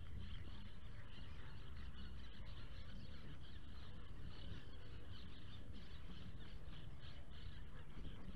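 Birds chirping continuously in many short, quick notes over a steady low rumble.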